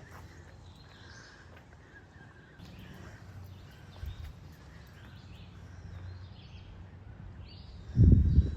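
Songbirds chirping and singing in woodland, many short varied calls over a low steady rumble. A loud burst of low rumbling comes near the end.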